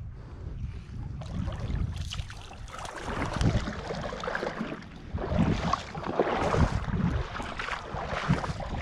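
Wind buffeting the microphone. From about three seconds in come irregular splashing and crunching steps as someone wades out of shallow water onto coarse sand, landing a small fish caught on a lure.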